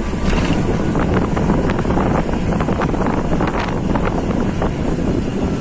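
Wind rushing over the microphone at an open bus window, over the steady engine and road noise of a bus climbing a hill road, with scattered small rattles.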